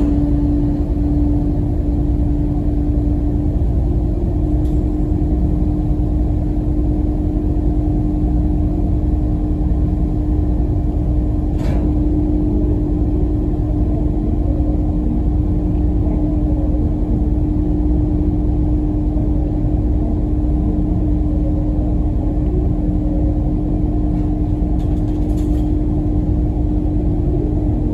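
A ferry's diesel engines running steadily, heard on board as a constant low drone with an unchanging hum.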